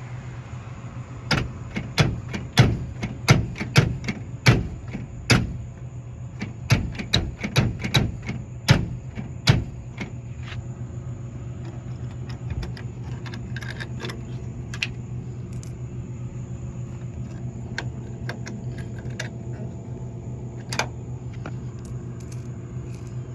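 Coins clinking in a vending machine's coin return as the change is paid out and gathered up: a quick run of sharp metallic clinks for the first ten seconds or so, then only a few now and then. A steady low hum sits underneath.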